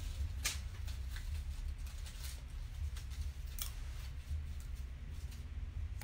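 A few faint, sharp light clicks, spaced irregularly over a low steady hum.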